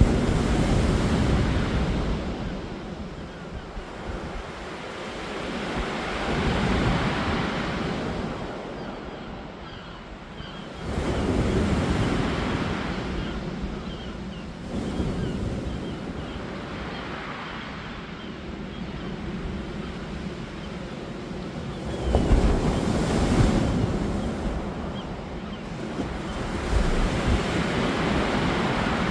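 Ocean waves breaking on a beach, about six loud surges that each swell up and wash away, with wind rumbling on the microphone.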